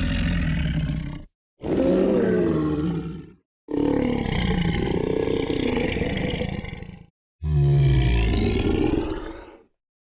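Monster groan sound effects: a series of separate pitched groans with wavering pitch, each one to three seconds long, divided by brief silent gaps. The first trails off just over a second in, and three more follow.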